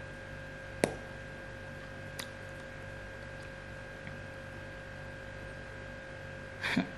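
Quiet room tone with a steady hum at two pitches. A single sharp click comes just under a second in, and a short breath or mouth sound comes near the end.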